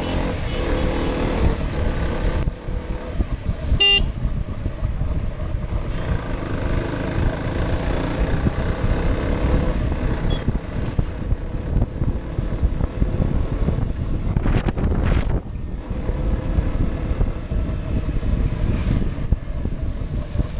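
Riding noise from a KTM Duke motorcycle: a steady rumble of wind buffeting the microphone over the engine and tyres on a wet road. A short horn toot sounds about four seconds in.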